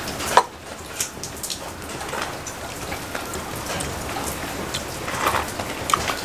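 Steady rain falling, an even hiss. About half a second in, a sharp knock as a drinking glass is set down on the tray.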